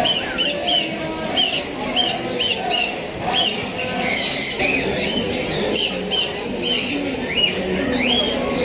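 Caged birds at a pet show chirping and squawking, short high calls coming several times a second without a break, over a low background murmur.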